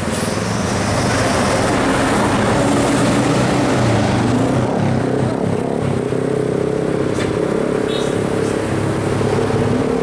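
Coach and car engines driving past in a steady stream round a bend: a continuous engine drone, with a second, higher engine note joining about halfway through. No horn is sounded.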